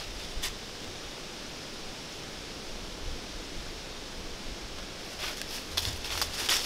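A white-tailed buck's hooves crunching in dry fallen leaves: one step just after the start, a pause with only a steady hiss, then a run of steps from about five seconds in.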